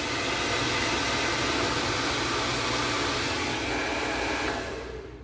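Hand-held hair dryer blowing steadily, then switched off and winding down near the end.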